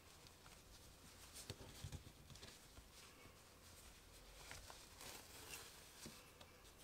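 Near silence, with a few faint rustles and soft ticks from hands handling yarn and a crocheted piece.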